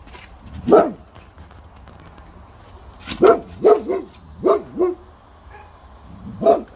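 Boxer dog barking on guard: a single bark about a second in, a quick run of about six barks a little after the middle, and one more near the end. This is alert barking at something beyond the fence.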